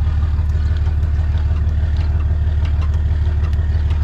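Truck engine idling steadily, with an even low pulsing hum, during slow maneuvering to hitch a trailer.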